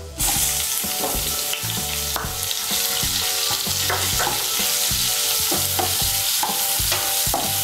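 Sliced onions hitting hot oil in a non-stick kadai and starting to sizzle at once, a steady sizzle as they fry. A spatula stirs them, scraping and clicking against the pan.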